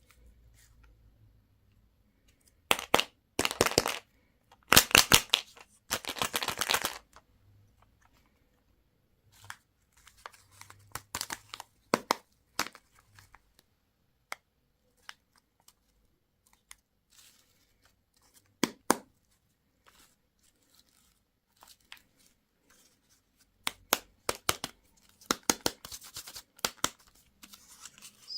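Candy wrappers being torn open and crinkled by hand: a few loud tearing rips in the first seven seconds, scattered sharp clicks and rustles, then a longer stretch of crinkling near the end.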